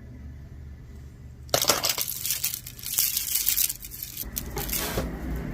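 Loose costume jewelry being rummaged through by hand: metal pieces and beads clinking and rattling against each other. It starts about a second and a half in and comes in irregular bursts.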